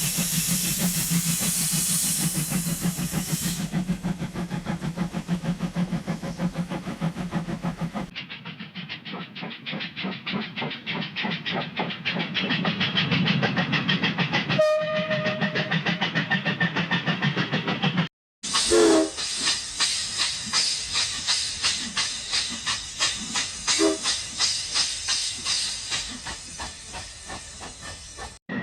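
Steam locomotive running, with rhythmic chuffing over a steady hiss of steam and a short whistle toot about halfway through. The sound is spliced from several recordings, with an abrupt change after about eight seconds and a brief dropout about two-thirds of the way through.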